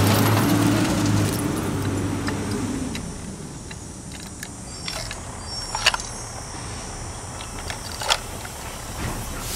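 A low steady rumble that fades out over the first three seconds, then light clicks and clatter from a die-cast toy front-loader garbage truck's arms and plastic dumpster being handled, the sharpest clicks about six and eight seconds in.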